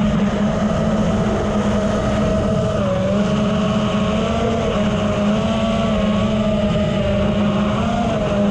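Brushless motors of a 5-inch FPV racing quadcopter (AOKFLY RV2205 2500KV) spinning three-blade propellers in flight. The whine rises and falls in pitch as the throttle changes, over a steady lower hum and rushing air noise.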